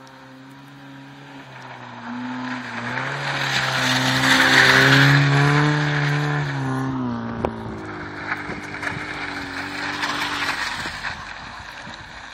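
Small car's engine revving hard as it drifts through a snowy bend close by, with the hiss of tyres on snow. The engine rises in pitch and is loudest about five seconds in, then drops sharply a couple of seconds later. A second car's engine and tyre hiss follow near the end.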